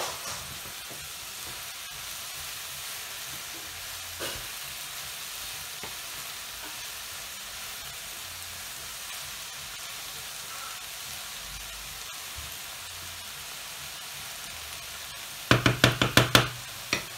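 Diced eggplant and zucchini sizzling steadily in a nonstick frying pan. Near the end a wooden spatula stirs them quickly, knocking against the pan six or seven times in about a second.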